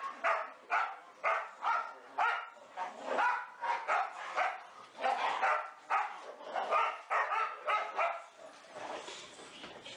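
Boxer dogs barking in play, a quick run of short barks about two a second.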